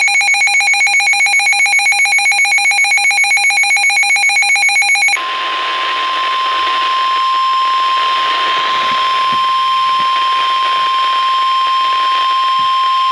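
NOAA Weather Radio alert coming through a radio receiver: about five seconds of rapidly pulsing electronic data tones, the SAME header that encodes the alert. Then a steady single-pitch 1050 Hz warning alarm tone over radio hiss, signalling that a warning message follows.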